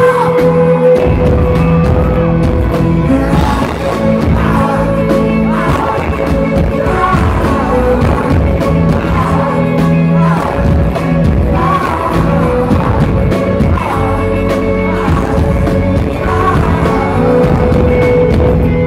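Rock band playing live with a male lead singer singing over the band, heard from within the audience.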